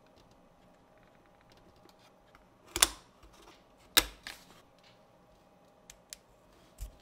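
Sharp wooden snaps and clicks of thin laser-cut plywood ROBOTIME model-kit parts being pressed out of their sheet and fitted together: two loud snaps about three and four seconds in, then a few lighter clicks.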